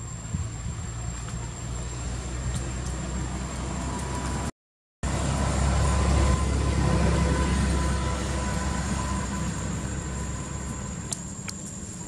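A steady low engine rumble, like a vehicle running close by. The sound drops out completely for about half a second about four and a half seconds in, and the rumble is louder just after.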